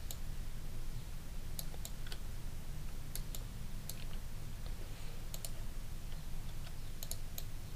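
Scattered light clicks of a computer mouse and keyboard, a few at a time and unevenly spaced, over a steady low hum.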